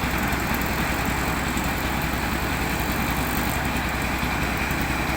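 Engine of an old car converted into a rice milling machine, running steadily with an even, rapid low pulse.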